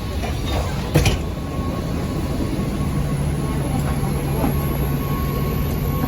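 Steady low rumble of the cabin noise inside a Boeing 737-700 airliner, with a sharp knock about a second in. A faint high whine slowly rises in pitch through the second half.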